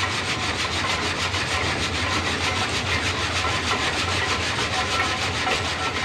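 Belt-driven sawmill saw cutting through wood, a fast, even rasping rhythm over a steady low hum of machinery.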